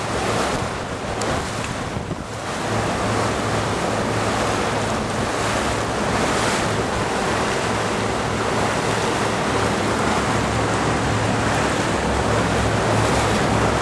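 Motorboat underway with a steady low engine drone, water rushing past the hull and wind buffeting the microphone.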